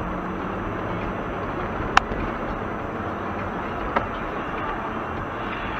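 Steady road and engine noise of a car driving on a slushy winter road, heard from inside the car through a dashcam. A sharp click about two seconds in and a fainter one about two seconds later.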